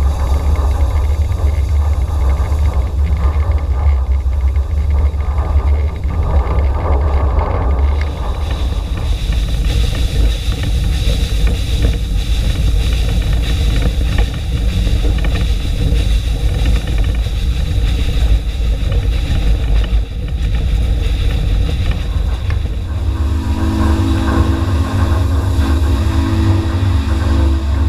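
Steam locomotive No. 41 running under way, heard from its cab: a loud, steady rumble with some hiss. Near the end, a low steady tone of a few pitches sounds for about four seconds.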